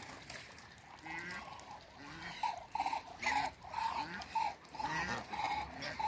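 Muscovy ducks calling: a run of short, repeated calls, about two or three a second, starting about two seconds in.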